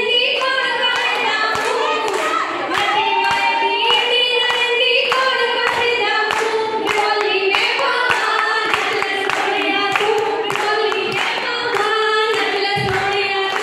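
Women singing a Punjabi folk song, a lead voice on a microphone with others joining in, over steady rhythmic hand-clapping.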